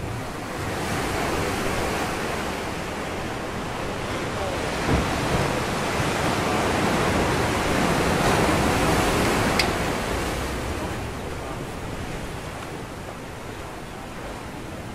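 Ocean surf washing against a rocky shoreline: a steady rushing that swells over several seconds, peaks about two-thirds of the way through and then eases off. There is a single brief sharp click near the peak.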